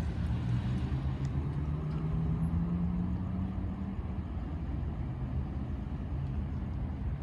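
A motor vehicle's engine rising slowly in pitch as it accelerates for about four seconds, over a steady low traffic rumble.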